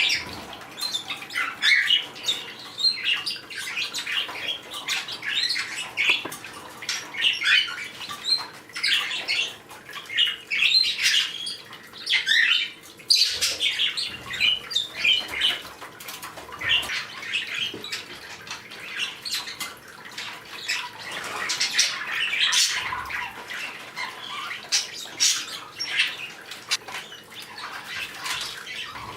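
Pet parrots squawking and chirping while they forage at a food bowl, with a continuous stream of short, irregular calls overlapping one another.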